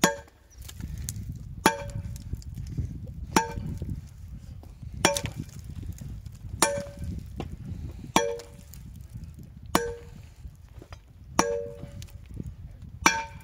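Steel digging bar being driven down into a limestone boulder, clanging with a short metallic ring at each stroke, nine strokes at an even pace of about one every second and a half.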